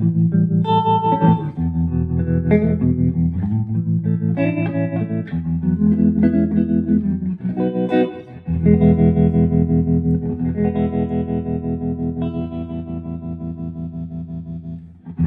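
Electric guitar through a 1963 Standel 32J12T hybrid amp (germanium-transistor preamp, 7591 power tubes, 12-inch Jensen speaker), playing clean chords that are struck and left to ring. The last long chord pulses evenly in level, which fits the amp's tremolo.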